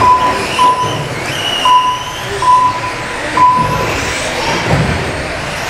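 Short electronic beeps from the race's lap-timing system, five in the first four seconds at uneven spacing, as cars cross the line. Under them are the rising whines of electric radio-controlled off-road cars' motors.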